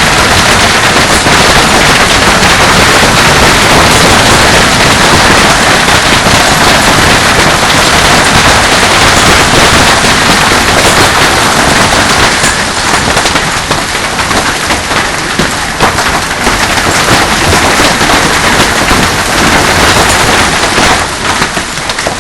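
Heavy hail pounding down, a loud, dense, continuous clatter of countless stones striking, easing a little in the second half and falling off near the end.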